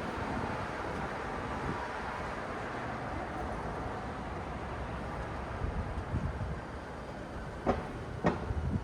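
City road traffic: a steady rumble of passing vehicles, with two sharp knocks about half a second apart near the end.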